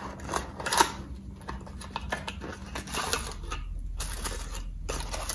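A small cardboard box being handled and opened: irregular light rustling and small clicks and taps of card packaging.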